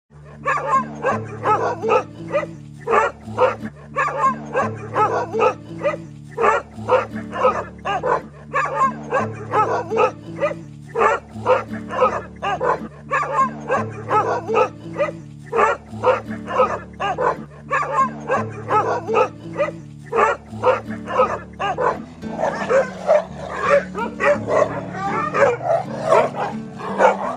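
Village dogs barking rapidly and repeatedly in a fight, several barks a second, turning into a denser, more ragged mix of barks and snarls near the end. Background music with a steady low bass line runs underneath.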